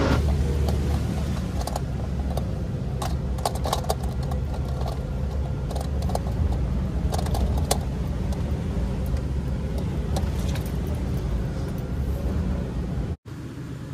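Jeep engine running at low trail-crawling speed, heard from inside the cab, with frequent light clicks and rattles from the vehicle as it rolls over rough ground.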